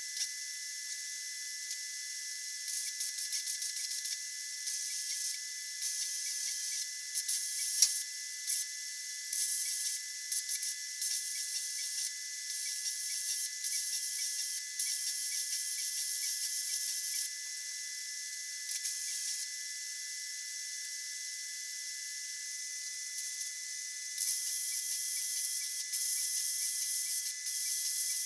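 Hobart Handler 190 MIG welder's arc crackling in a string of short welds, starting and stopping every second or two. After a pause there is a longer run of about four seconds near the end.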